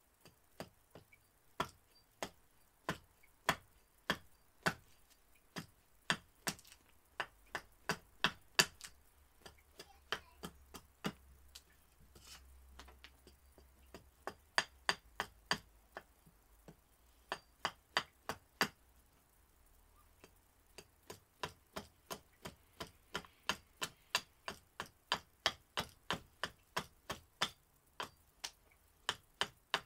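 Gransfors Bruk Large Swedish Carving axe hewing a split cherry spoon blank on a chopping block: a long series of sharp wooden chops, uneven at first, then an even run of about two a second over the last ten seconds.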